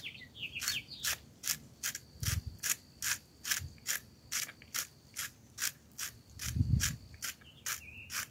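Hand salt grinder being twisted, crushing coarse pink Himalayan salt crystals: an even run of dry ratcheting crunches, about three a second.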